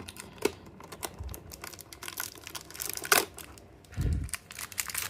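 Blind-box packaging being handled as a small cardboard door is picked open: scattered light clicks and taps with crinkling of packaging. A crinkly rustle comes about three seconds in and a dull thump about four seconds in.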